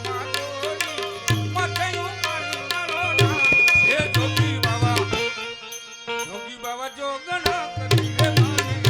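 Indian music led by tabla, with a melody instrument playing over the drumming. The drumming thins out for about two seconds past the middle, then comes back in fully.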